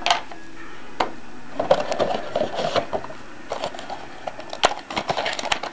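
Trading cards being handled and slid against one another: soft rustling with scattered light clicks, and sharper clicks about a second in and again a little before five seconds.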